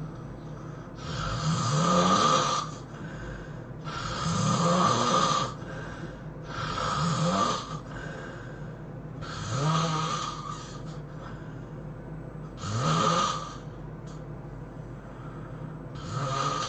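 A person snoring loudly in sleep: six heavy snores about three seconds apart, each rising in pitch, the last one cut off at the end.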